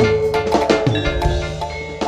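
Javanese jaranan ensemble music: struck metal gamelan-style percussion ringing in a quick pattern over drum strokes.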